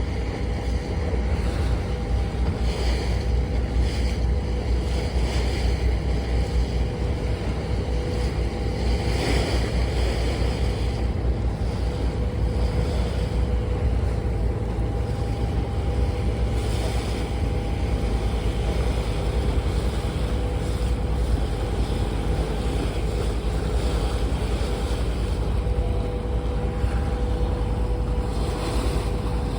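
Engine of the boat running steadily under way, a low rumble with a steady hum, with water wash and wind gusting on the microphone.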